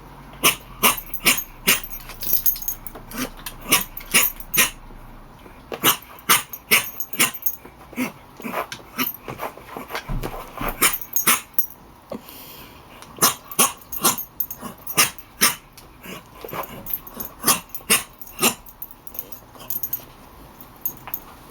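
A dog chewing a squeaky toy, setting off a long, irregular run of short squeaks, several a second, with a brief pause about halfway through.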